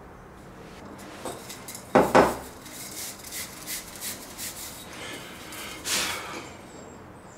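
Metal aerosol can handled on a workbench: a sharp double clank about two seconds in, then steel wool scrubbing the can's metal body in short, scratchy strokes, with a louder scrape near six seconds.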